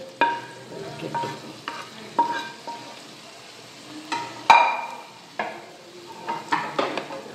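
A wooden spatula scraping and knocking a hot coconut-oil tempering of fried coconut slices, shallots and curry leaves out of a pan onto chicken curry in a metal pot, with a light sizzle. About nine sharp knocks, some leaving a short metallic ring, the loudest about four and a half seconds in.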